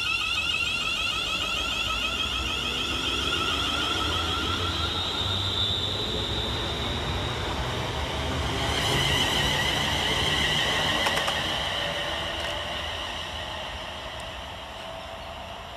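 West Midlands Railway Class 350 Desiro electric multiple unit passing and running away, its traction equipment whining in several tones that slide down in pitch over a rumble of wheels on rail. The sound fades near the end.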